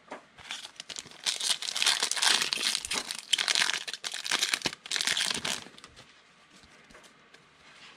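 Plastic wrapper of a football trading card pack being torn open and crinkled by hand, in several loud spells for about five seconds, then only faint clicks of the cards being handled.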